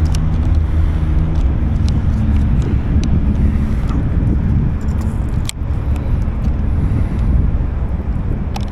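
A steady low rumble with scattered clicks and taps from a digital fish scale and a lip grip being handled. The sharpest click comes about five and a half seconds in.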